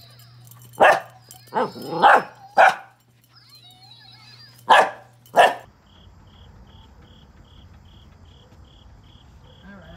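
A small dog barks six times in sharp bursts, in two clusters. After that, insects chirp steadily, about three high chirps a second.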